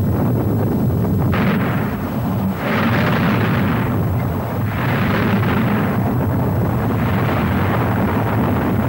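Mount Etna's ash crater erupting: a steady low rumble under a loud hissing roar that surges about four times, each surge lasting a second or more.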